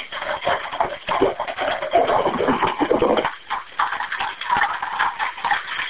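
Dense, irregular crackling and clatter heard over an open telephone line, the low end dropping out about three seconds in.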